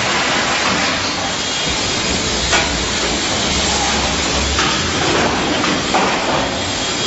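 Factory production-line machinery running with a steady hiss and low rumble, with a few sharp knocks spread through.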